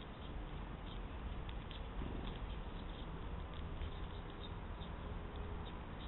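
Faint short chirps from sparrows feeding at a grain spread, several a second, over a steady low background hum.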